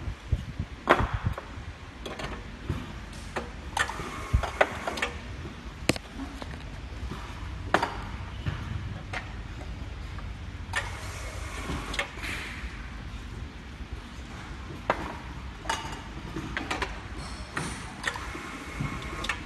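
Scattered knocks and clicks of aerosol cans being handled and set into a manual labelling machine, with brief rustles, over a steady low hum.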